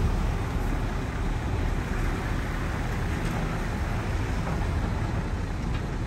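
Heavy earthmoving machinery's diesel engine running steadily: a continuous low rumble with hiss above it.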